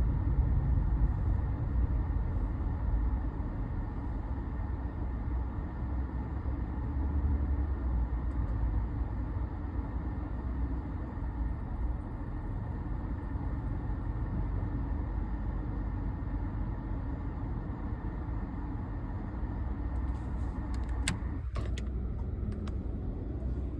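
City street traffic: cars passing in a steady low rumble that swells and eases. A few sharp clicks near the end.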